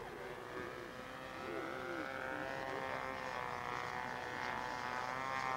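Two-stroke engine of a radio-controlled model aircraft in flight, a steady high-pitched drone that grows gradually louder. It is pretty quiet for a two-stroke.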